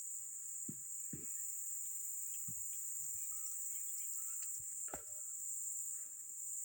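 Steady, high-pitched chorus of insects, with a few faint knocks.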